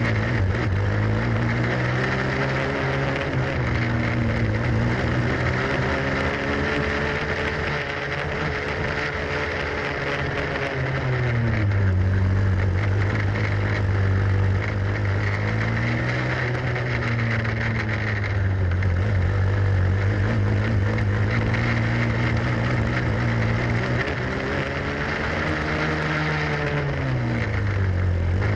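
Onboard sound of a grass racing kart's engine running hard at high revs. Its pitch drops and climbs back three times as the kart slows for corners and accelerates out of them.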